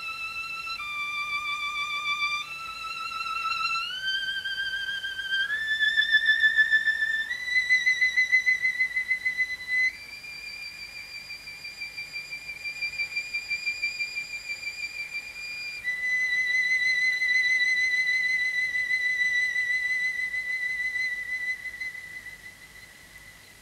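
Unaccompanied solo violin playing a slow line of high, long-held notes with vibrato. After one dip near the start it climbs note by note, then settles on a long high note that fades away near the end.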